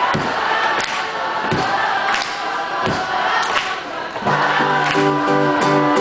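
Audience clapping in time, about one and a half claps a second, with crowd voices singing along. About four seconds in, an acoustic guitar comes in strumming steady chords.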